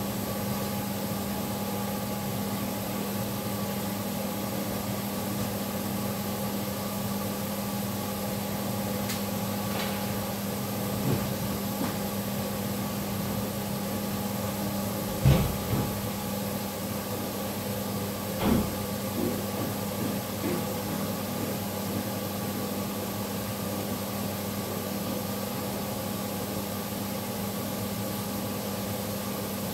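A steady mechanical hum with a high hiss, broken by a few short dull knocks near the middle, the loudest about halfway through.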